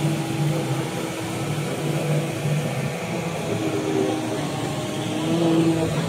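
Hoover cordless stick vacuum running steadily as its motorised brush head sweeps spilled granules off a carpet, over a steady background hum with a low tone that comes and goes.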